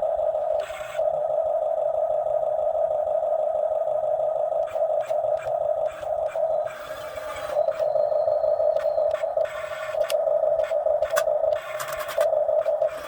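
Excavator at work: its machinery gives a steady, slightly wavering whine, with scattered knocks and scrapes from the bucket working the ground.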